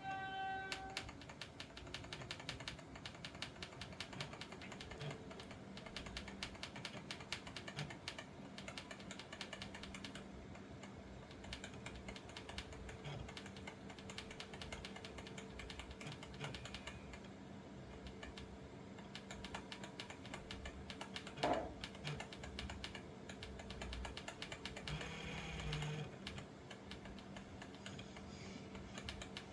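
AIO liquid CPU cooler whining: a steady hum-like whine with a fast, dense clicking rattle over it. A short rising sound stands out about two-thirds of the way through.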